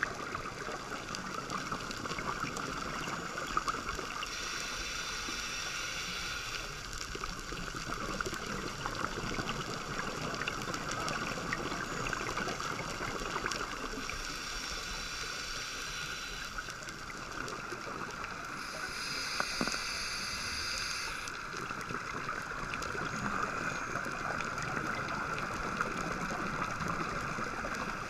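Underwater sound on a coral reef heard through a GoPro's waterproof housing: a steady fizzing crackle, with the bubbly rush of a scuba diver's regulator exhaust three times, each lasting two to three seconds.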